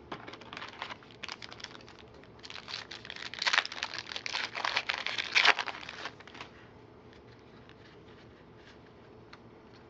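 Foil wrapper of a 2011 Score football card pack crinkling and tearing open. A few light ticks come first, then a dense crackle from about two and a half to six seconds in.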